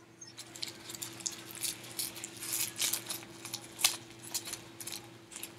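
Plastic blind-bag packaging of a Shopkins toy crinkling and crackling as it is opened by hand: a quick, irregular run of sharp crackles.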